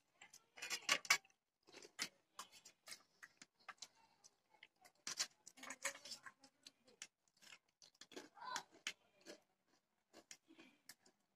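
Close-up eating sounds: crisp potato chips and fryum snack sticks being handled, crunched and chewed, heard as an irregular run of sharp crackles and clicks. The sharpest crackles come at the very start and about a second in.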